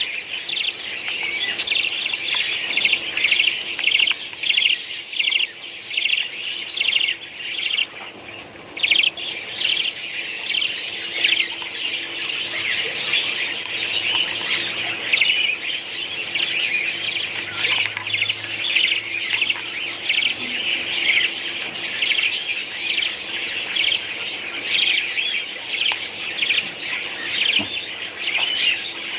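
A colony of budgerigars chattering: many overlapping rapid chirps and warbles that run on continuously, with a brief lull about eight seconds in.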